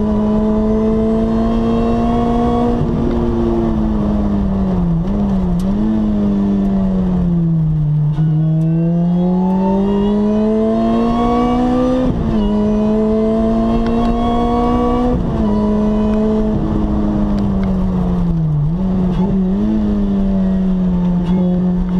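Lotus Exige S engine heard from inside the cabin, running hard at speed. The revs climb steadily and drop sharply at upshifts about twelve and fifteen seconds in, and the note falls away as the car lifts off in the first half and again near the end.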